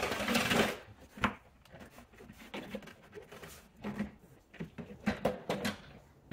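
Handling noises in a car's front wheel well: the plastic wheel-well liner scraping as it is held back, a sharp click about a second in, then scattered light knocks and scrapes.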